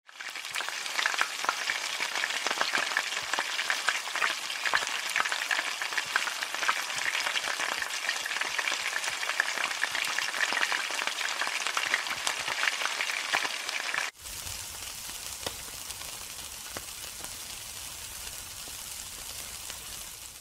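Food frying in hot oil in a wok, a dense sizzle full of crackles and pops. About fourteen seconds in it cuts to a quieter, steadier sizzle with a low hum underneath.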